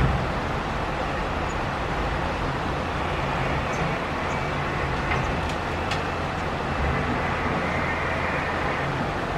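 Caterpillar excavator's diesel engine running steadily under work, with a few faint sharp knocks about midway.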